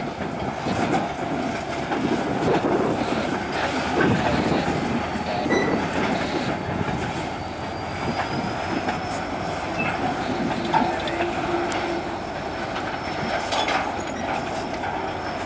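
Norfolk Southern diesel freight locomotive and its loaded gondola cars rolling slowly past, with wheels clicking over rail joints and now and then a faint high wheel squeal.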